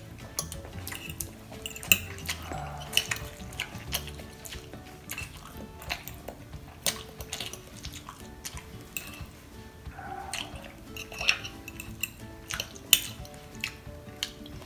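Metal fork clinking and scraping against a glass baking dish while twirling instant noodles: a string of sharp, irregular clicks. Quiet background music underneath.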